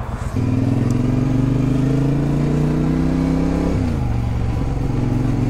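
Triumph America motorcycle's parallel-twin engine pulling away, its pitch climbing slowly. About three and a half seconds in the pitch drops sharply as it shifts up a gear, then it runs on steadily.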